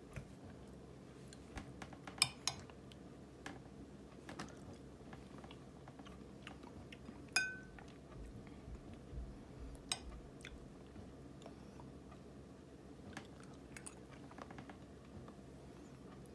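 A metal spoon clinks and scrapes faintly against a ceramic dish as it digs into soft, thawed ripe persimmon. A few sharp clinks stand out; the loudest, about seven seconds in, rings briefly.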